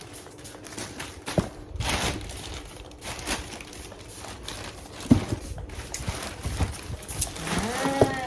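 Parcels being sanitized and handled: a string of short spray and rustle sounds. Near the end comes a drawn-out call that wavers in pitch.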